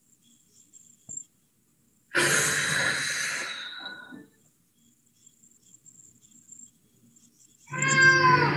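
A woman's deep breathing during slow neck rolls: a long, breathy exhale about two seconds in as the chin tucks down, then a voiced sigh near the end.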